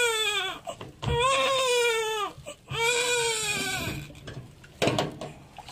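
Newborn baby crying: three long wails, each a little over a second, with short breaths between. A brief knock follows near the end.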